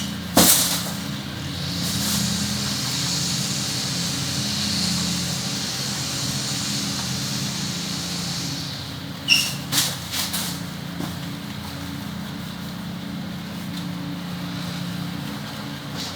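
Running water hissing as hair is washed, swelling for several seconds before easing off, over a steady low hum. There is a sharp knock near the start and a few more knocks with brief high squeaks a little past halfway.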